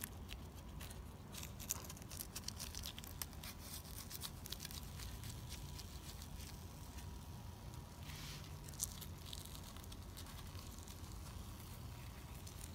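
Eggs frying in hot oil in a cast-iron skillet: a faint sizzle with scattered crackling pops, thickest over the first few seconds and again about eight seconds in, over a low rumble.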